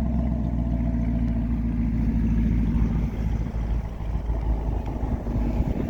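2021 Camaro LT1's 6.2-litre V8 idling through its dual-mode exhaust with a steady low rumble. It grows rougher and less even about halfway through.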